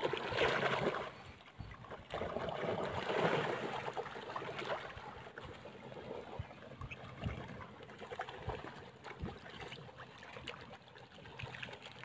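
Lake water lapping and splashing at the rocky shore as black swans and Eurasian coots paddle close by, with louder splashing in the first second and again around three seconds in.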